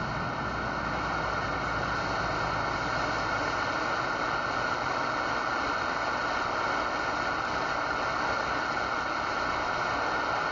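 Steady hiss from a CB radio's speaker, with a low hum underneath in the first few seconds.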